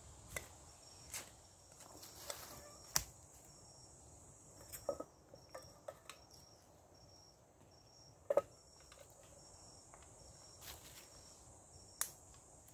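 Forest insects: a steady high-pitched drone with crickets chirping about twice a second. A few sharp clicks and knocks sound over it, the loudest about three seconds and about eight seconds in.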